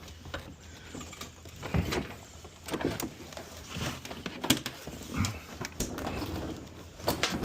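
Scattered knocks, bumps and scuffs as a refrigerator is carried by hand through a doorway, coming irregularly every second or so.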